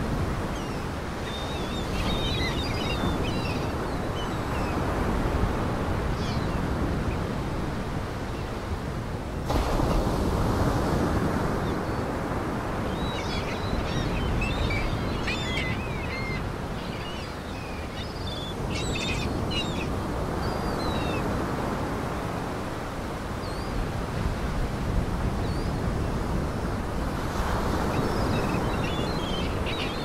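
Lake Michigan waves washing and splashing against a rocky breakwater: a continuous rushing surf that swells and eases, stepping up suddenly about a third of the way in. Birds chirp in short clusters above it near the start, through the middle and near the end.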